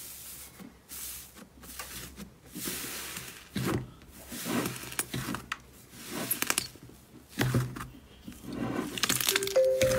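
A hand pressing and squeezing a large dome of fluffy white slime in a bowl: irregular soft squishes and squelches as air is pushed out, turning into a quick run of crackling near the end.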